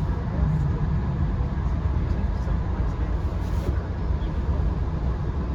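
Steady low rumble of a Via Rail passenger train running along the track, heard from inside the coach, with a faint steady tone above it.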